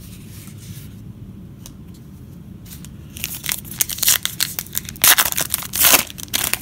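Trading card pack's foil wrapper crinkling and being torn open, starting about three seconds in. The loudest tearing comes about five to six seconds in.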